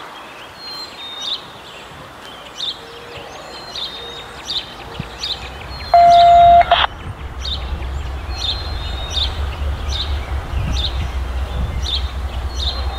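Songbirds chirping over a low rumble from an approaching Union Pacific diesel locomotive, which builds from about seven seconds in. About six seconds in, one loud horn note sounds for under a second.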